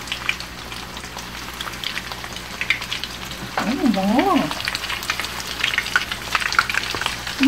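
Cornstarch-coated beef strips deep-frying in hot oil in a wok: a steady sizzle dense with small crackling pops. A brief rising-and-falling voice sound comes about four seconds in.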